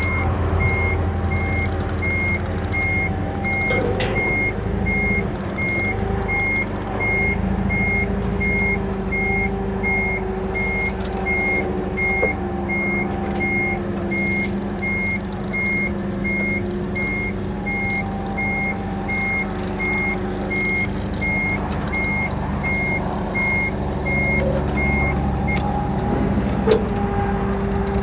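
Forklift engine running with its backup alarm beeping steadily in quick, even pulses; the beeping stops a few seconds before the end while the engine keeps running.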